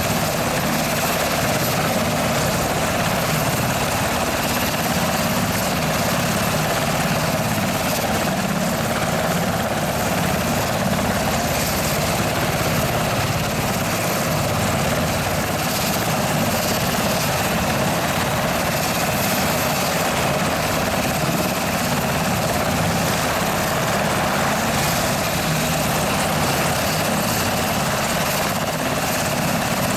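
UH-60 Black Hawk helicopter running on the ground, its twin T700 turboshaft engines turning the main rotor, giving a loud, steady turbine rush and whine that does not change.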